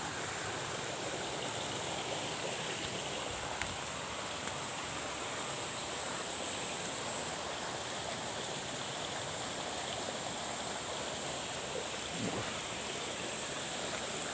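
Steady rushing noise of running water with an even level, over a constant thin high-pitched hiss.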